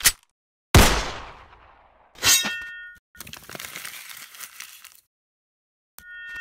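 Cinematic sound-design hits: a sudden heavy impact about a second in with a long fading tail, then a hit with a ringing metallic tone, then about two seconds of crackling noise that cuts off abruptly, and another ringing hit near the end.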